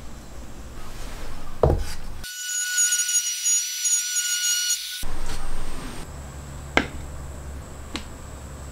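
Cordless trim router running with a steady high whine for a few seconds in the middle, between quieter handling sounds and a few sharp clicks.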